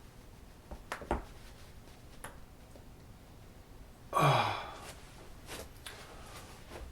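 A man's loud voiced sigh, falling in pitch, about four seconds in, as he leans back in a standing stretch to crack his lower back. A couple of faint clicks come about a second in.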